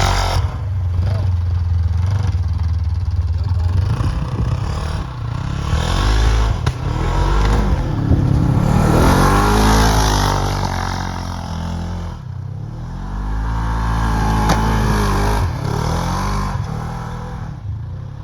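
Off-road vehicle engine revving up and down repeatedly, its pitch rising and falling several times, with a dip near the middle.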